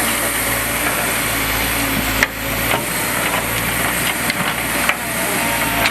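Engine of a heavy earthmoving machine running steadily, with a few sharp knocks, the strongest about two seconds in.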